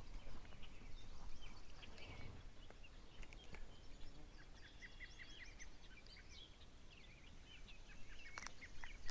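Small birds chirping faintly over quiet outdoor ambience, with a few light clicks near the end.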